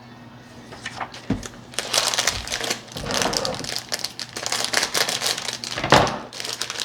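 Plastic film bag of Haribo Orangina candy crinkling loudly as it is handled and opened, in irregular rustling crackles that start about a second and a half in.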